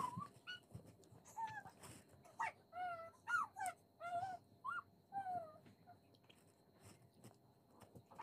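An animal whimpering: about ten short, high whines that bend up and down in pitch, dying away after about five seconds.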